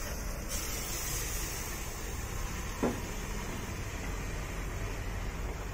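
Steady low background rumble with one short knock almost three seconds in.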